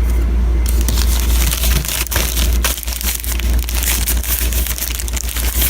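Crinkling and rustling of packaging being handled and opened, a dense run of small crackles starting just under a second in, over a steady low hum.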